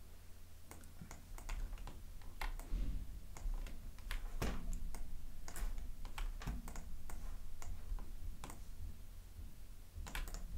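Irregular clicks of a computer mouse and keyboard, over a steady low hum.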